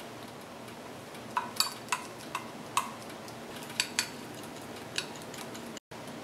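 A thin stirrer clinking against the side of a glass measuring jug while batter is mixed: about eight light, irregular taps over a few seconds.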